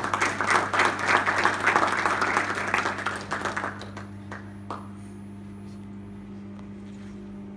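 Audience applauding, dying away about four seconds in, leaving a steady low hum.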